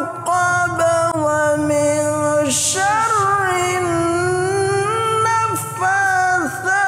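A man's voice chanting Quran recitation in Arabic, drawing out long notes that waver and slide between pitches, with short breaks for breath.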